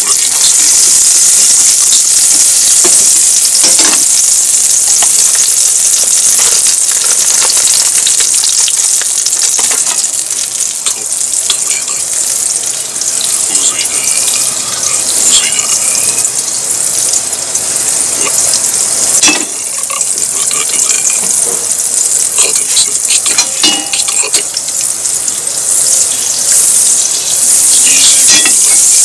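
Butter sizzling as it melts in a hot frying pan over a gas flame, with a few scattered pops, while the pan is tilted and swirled.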